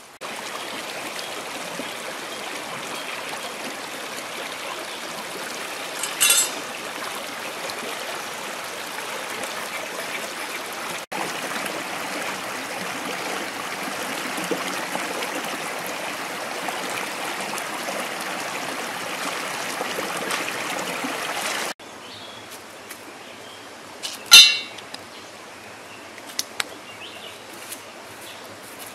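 Water splashing and running through a wicker basket as a handful of beetle grubs is washed by hand: a steady rush of water. It stops about three quarters of the way through, and a single sharp knock follows, the loudest sound, then a few light ticks.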